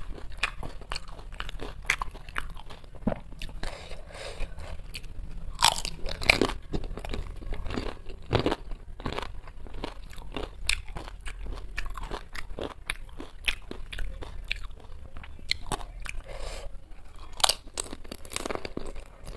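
Close-miked chewing and crunching of crisp fuchka (panipuri) shells: irregular crackly crunches and mouth sounds throughout, with a few louder bites about six, eight and a half and seventeen seconds in.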